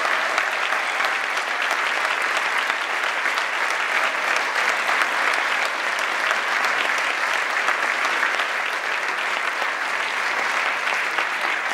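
Theatre audience applauding: many hands clapping at once, steady and dense.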